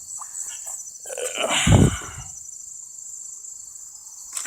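A 10 hp Tecumseh garden tractor engine cranking briefly on its starter for about a second without firing: the new carburetor has not been primed and the fuel is still shut off. Crickets chirp steadily throughout, and there is a sharp click near the end.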